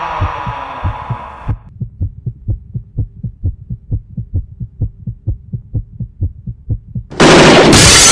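Heartbeat sound effect: low, evenly spaced thumps in pairs, while a falling siren-like tone fades out in the first second and a half. About seven seconds in, a sudden, very loud crash cuts in.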